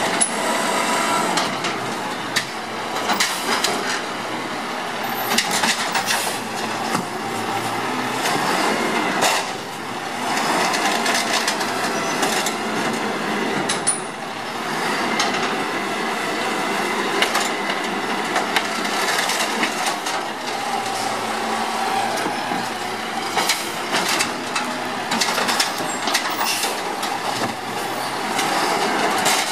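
Circa-2000 automated side-loading garbage truck working a row of yard-waste carts: the engine runs steadily under repeated clanks and knocks as the grabber arm grips, lifts and dumps the carts.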